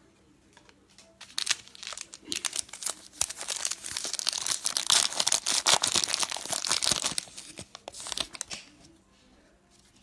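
A trading-card pack wrapper being torn open and crumpled by hand: a dense crinkling crackle that starts about a second in, is loudest in the middle and dies away near the end.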